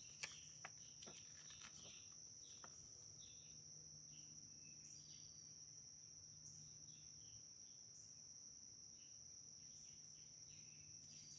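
Faint, steady high-pitched trilling of insects outdoors, with a few soft clicks in the first second or so.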